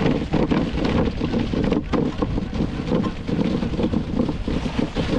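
Dog sled running over icy, packed snow: a steady scraping rush from the runners, with small crunches and clicks all through and wind buffeting the microphone.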